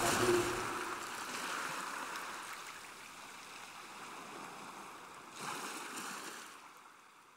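Small waves washing in on a shallow shore, with one wave swelling up a little over five seconds in; the sound fades away near the end.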